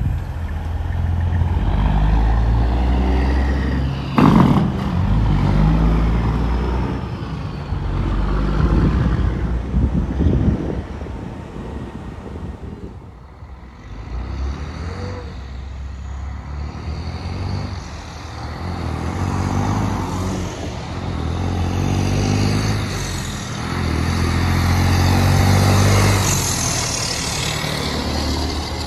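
Straight-piped diesel truck engines, loud, accelerating in waves of rising revs as they shift through the gears: first a semi tractor-trailer pulling away, then a tri-axle dump truck building up as it passes. A sharp bang about four seconds in is the loudest sound.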